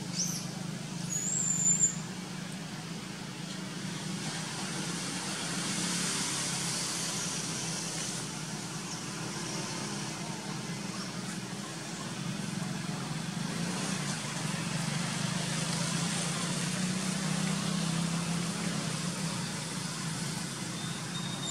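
Steady low engine-like hum over a broad background noise, with a brief high-pitched squeak between one and two seconds in.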